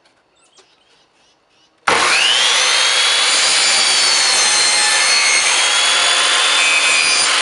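Electric chop saw (miter saw) starting up about two seconds in, its motor whine rising, then cutting through a clapboard siding board with a loud, steady whine and sawing noise.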